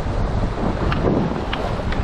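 Wind buffeting the action camera's microphone with a steady rumble, over water sloshing on the sea, with a few small splashes about a second in.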